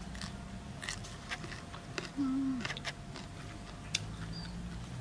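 A person chewing a mouthful of young tamarind and shrimp salad, with small crunching clicks scattered throughout. A brief low falling hum comes a little over two seconds in.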